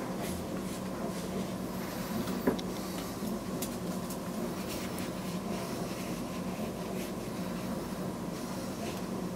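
Steady low electrical hum of room equipment, with a few faint taps and clicks and one sharper tick about two and a half seconds in.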